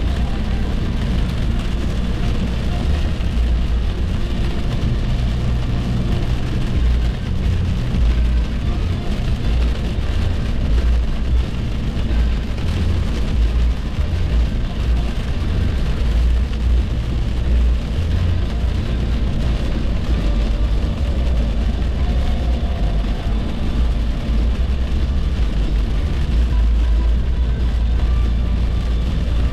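Car driving at highway speed: steady road and engine noise with a deep rumble.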